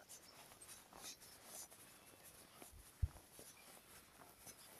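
Faint scratching and rustling of a waterproof jacket hood rubbing close to the microphone while walking, with one low thump about three seconds in.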